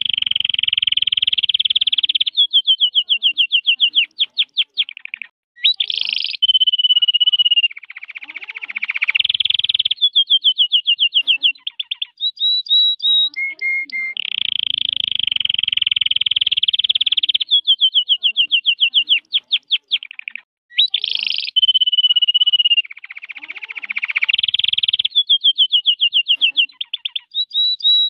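Red-factor canary singing a long, continuous song of steady rolls and rapid trills, one phrase running straight into the next. The same sequence of phrases comes round twice.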